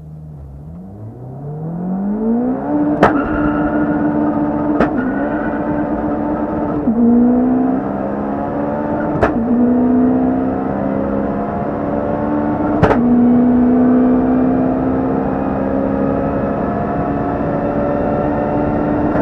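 Turbocharged Honda K20 four-cylinder in a 650 hp Civic at full-throttle acceleration, heard from inside the cabin. The engine rises in pitch off the line, then pulls hard at high revs. Each of four gear changes brings a sharp crack and a brief dip in pitch.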